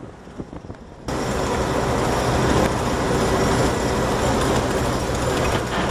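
Loud, steady machine rumble with a low hum under it, starting abruptly about a second in.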